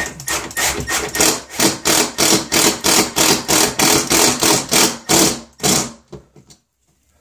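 Cordless impact driver hammering a screw through a wooden strip into the wall, a fast rattling run with a few short breaks, stopping suddenly about six seconds in.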